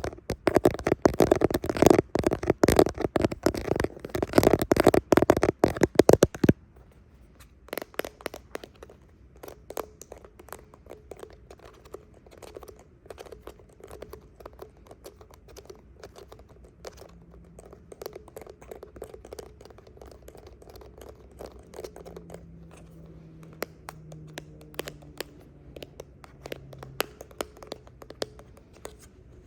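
Fingernails scratching and tapping close to the microphone: dense, loud scratching for about six seconds that stops abruptly, then scattered, softer taps and clicks.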